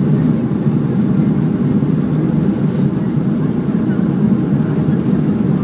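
Steady low roar inside the cabin of a Boeing 737-400 in flight on approach: noise from the CFM56 turbofan engines and the airflow, heard from a window seat over the wing.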